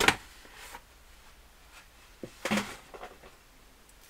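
A few short rustles and taps of a bubble-wrap mailer being handled on a desk, with quiet between them; the loudest comes right at the start and another about two and a half seconds in.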